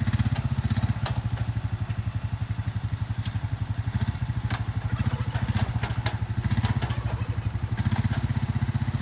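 Four-wheeler (ATV) engine running steadily at a low, even pulse, with a few light clicks and knocks.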